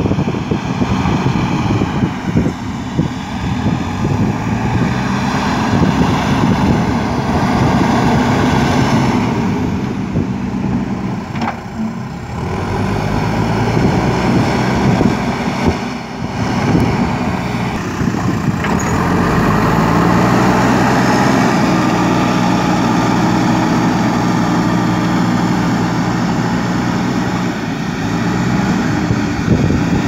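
Diesel engine of a JCB 3DX backhoe loader working under load as it pushes and spreads loose soil with its front bucket, its note rising and falling with the throttle.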